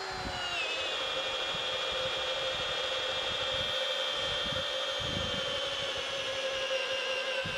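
Ryobi 18-volt cordless hammer drill in drill mode on its lowest speed, its motor whining steadily under load as it drives a long auger bit into a log. The pitch drops a little about half a second in as the bit bites, then holds.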